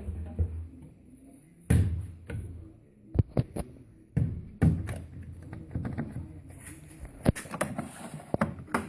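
Siemens washing machine giving irregular knocks and thuds, about one every second or two.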